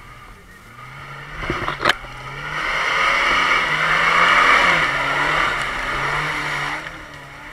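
Lada Niva (VAZ-2121) engine revving under load as it drives through mud close past, its pitch wavering and lifting. There is a sharp knock about two seconds in, then a loud rushing noise of tyres churning mud through the middle.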